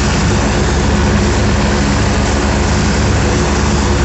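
AgustaWestland AW109 helicopter's turbine engines and main rotor running steadily on the ground at idle, loud and unchanging.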